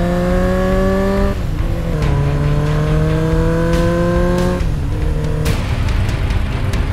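300cc adventure motorcycle's engine accelerating up through the gears: its pitch climbs steadily and drops at each upshift, about a second in and again past four seconds. It then settles into a steadier, noisier sound near the end.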